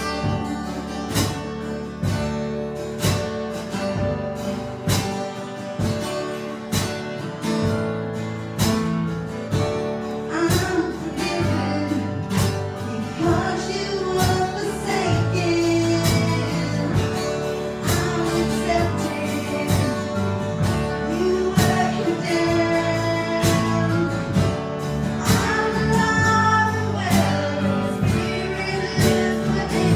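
Worship music: a band with acoustic guitar strumming to a steady beat, with singing coming in about ten seconds in.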